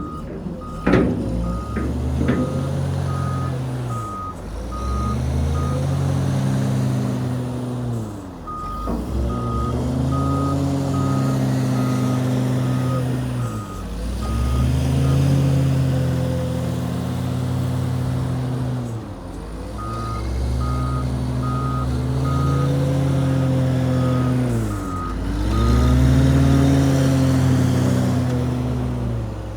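Heavy diesel vehicle working, its engine revs dropping and climbing again every five seconds or so, typical of a loader shuttling back and forth. A reversing alarm beeps steadily three times over, each stretch lasting several seconds.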